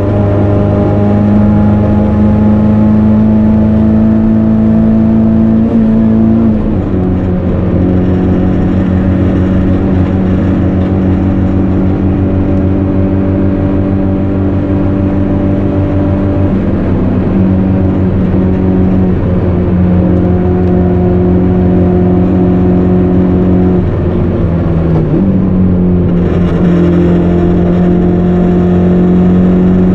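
Turbocharged CA18DET 1.8-litre four-cylinder of a Nissan 200SX S13 running hard under load, heard from inside the car. It holds high revs through long pulls, with the engine pitch stepping down about six seconds in and dipping briefly near twenty-five seconds, as with gear changes.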